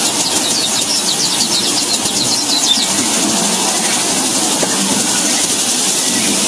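Weaver birds chattering in rapid runs of short, high, falling chirps, most of them in the first half, over a steady high hiss.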